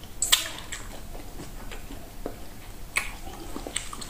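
Wet eating sounds: lips smacking and sucking slimy okro soup off the fingers, with two sharp smacks, about a third of a second in and about three seconds in, and fainter chewing clicks between.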